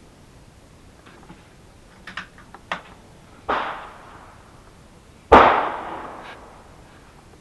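A few light clicks, then two .22 LR rifle shots about two seconds apart, each with a short echoing tail; the second is much louder. The source is a CZ 457 American bolt-action rifle being fired at paper while its scope is zeroed.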